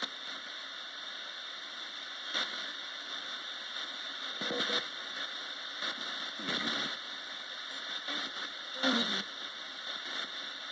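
Roberts radio hissing with static between stations, with short snatches of sound breaking through about four times, a few of them voice-like.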